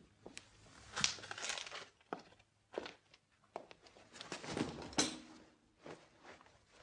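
Faint rustling and scattered light clicks and knocks, with two longer rustling stretches, one about a second in and one around four to five seconds in.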